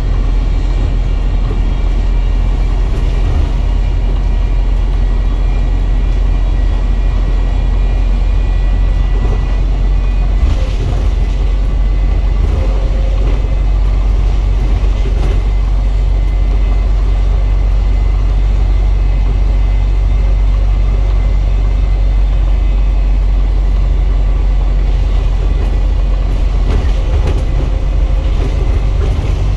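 Wright StreetDeck double-decker bus heard from on board while running. There is a steady, heavy low rumble with a thin high whine over it, the whirly sound the bus is known for.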